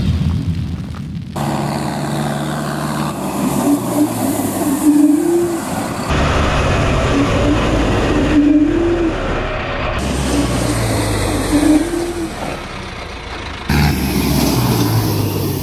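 Diesel farm tractor engines running as loaded tractors drive past on a concrete road, in several short shots cut together. Brief rising tones come back about every three to four seconds.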